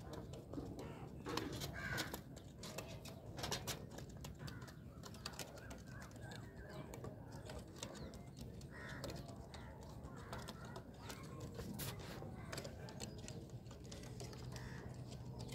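Faint bird sounds: Punjabi pigeons cooing in the loft, with crows cawing now and then.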